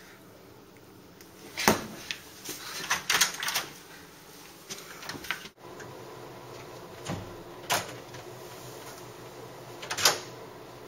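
A sharp knock about two seconds in, followed by a short run of clattering knocks. Later a room door is opened and, near the end, pulled shut with a loud latching thud.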